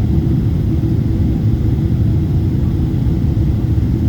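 Steady low rumble of a jet airliner's engines and rushing air, heard from inside the passenger cabin during the landing approach.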